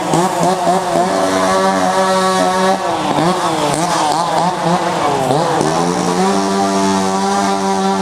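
Chainsaw carving saw running at high speed with a steady pitch, then revved up and down repeatedly in the middle before settling back to a steady high run.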